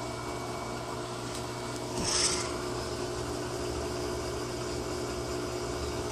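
Electrolux LT15F washing machine running with a steady motor hum. A short hissing rasp comes about two seconds in.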